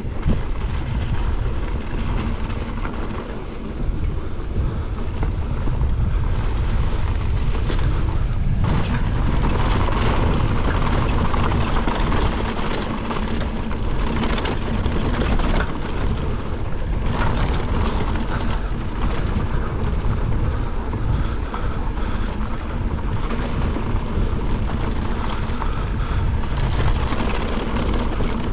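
A Norco Fluid FS3 full-suspension mountain bike ridden fast downhill on a dirt trail: tyres running over loose ground and the bike rattling, with frequent knocks. Heavy wind noise buffets the microphone throughout. The sound grows fuller about eight seconds in.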